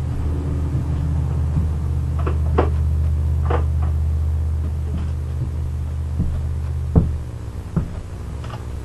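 Metal wrenches clinking a few times, sharp and short, as a wrench of the right size is sought for the chainsaw's bar nuts. Under them runs a steady low hum that stops about seven seconds in.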